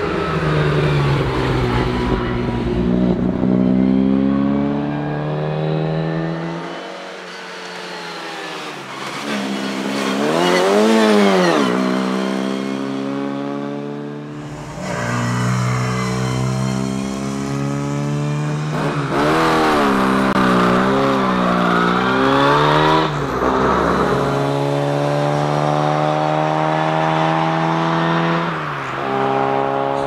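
Austin A30's A-Series four-cylinder engine being driven hard: its pitch climbs in steps through the gears, falls back under lifts, and swings up and down in quick rev arches around corners.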